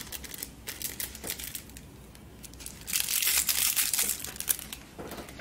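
Paper sachet of powdered medicine crinkling and rustling as the powder is shaken out of it, with a louder stretch of crumpling about three seconds in.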